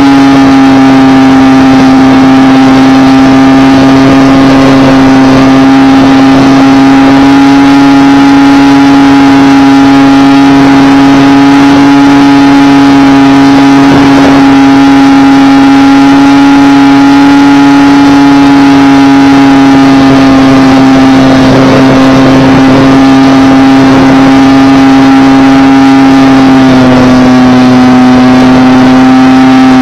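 Multiplex PC-6 Porter model plane's electric motor and propeller running in flight, heard close from the airframe: a loud steady whine with overtones over rushing air, dipping slightly in pitch near the end as the throttle eases.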